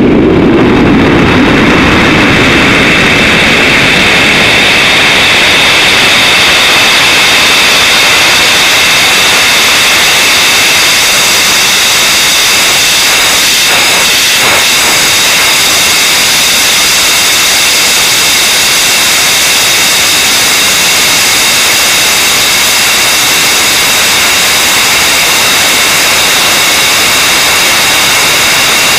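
Liquid-oxygen and ethanol rocket engine firing during powered ascent, heard through the rocket's onboard camera microphone as a loud, steady rushing noise with several high whistling tones held over it.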